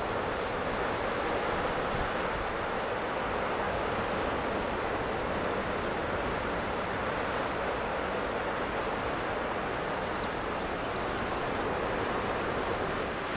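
Sea surf breaking on a rocky shore, a steady rushing mixed with wind. A few short high chirps about ten seconds in.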